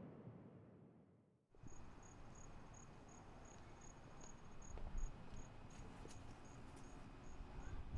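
A soft room-like ambience fades out to a moment of silence, then a cricket chirps at an even pace, about three high chirps a second, over a faint low rumble.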